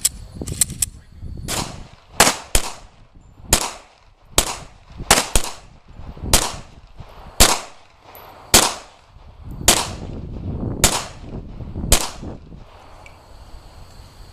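Glock 22 pistol firing a steady string of about a dozen shots, roughly one a second, with a few fainter sharp cracks near the start.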